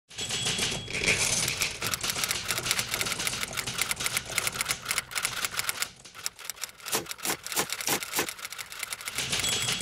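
Manual typewriter being typed on: a fast, dense clatter of typebar strikes. About six seconds in it briefly thins, then comes a handful of separate, heavier strikes before the clatter picks up again.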